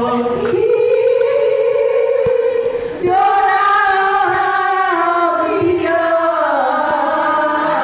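A group of women singing together into microphones, holding long notes that step up and down in pitch, with a brief break about three seconds in.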